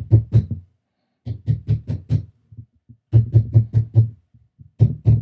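Quick, dull taps on the side of a soil-filled self-watering plant pot. They come in runs of three to six at about five a second, with short pauses between the runs.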